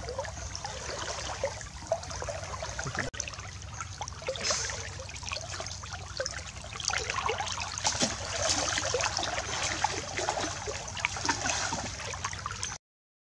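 River water sloshing and trickling around a person wading waist-deep, with many small irregular splashes; it cuts off suddenly near the end.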